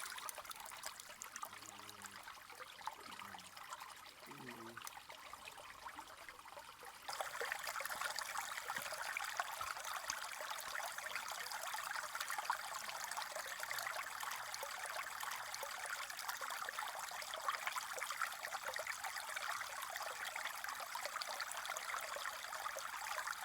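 Steady trickling, running-water noise that gets louder about seven seconds in.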